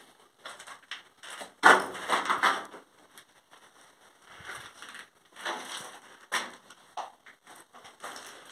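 Irregular crunching and scuffing of footsteps on grit and debris on a concrete bunker floor, with a small-room echo; the loudest cluster comes about two seconds in.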